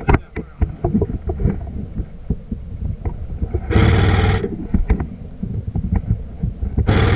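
An airsoft electric gun firing a burst of rapid shots, a mechanical buzz, about four seconds in, and another burst starting near the end. Irregular knocks and clicks are heard in between.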